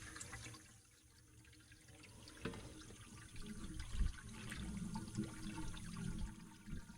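Artesian well water flowing out through newly fitted pipe, with a few faint knocks.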